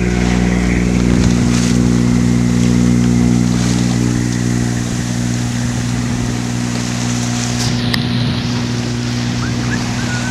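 An Island Packet 35 sailboat's inboard diesel engine running at a steady speed, with water rushing along the hull.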